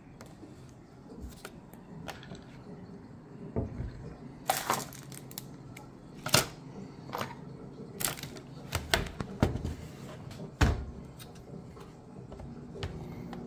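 Plastic screen bezel of an HP ProBook 640 G2 laptop being pried off by hand: a string of irregular sharp clicks and snaps as its clips let go.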